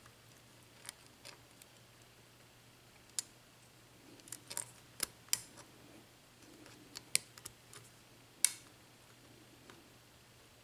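Faint, irregular metallic clicks and light scraping of a lock pick lifting the pins of a Schlage mortise cylinder under tension during single-pin picking, about eight sharp ticks spread unevenly, over a low steady hum.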